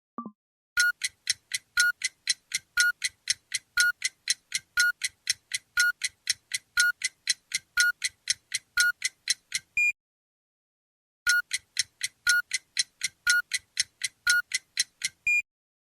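A OnePlus Nord CE 5G built-in tone made of rapid clock-like ticks, with a brighter accented tick about once a second and a higher ping to close. It runs for about nine seconds, pauses for a second, then plays again more briefly, ending on the same ping.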